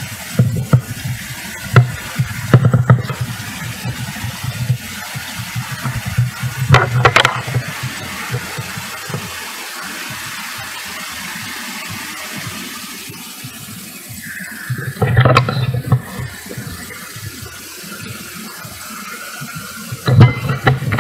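Roadside street noise: a steady rush of traffic, with bursts of low rumble that come and go through the first half, return about two-thirds of the way through and again near the end.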